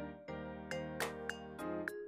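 Outro music: sustained chords that change every half second or so, with light ticking percussion and small chime-like dings.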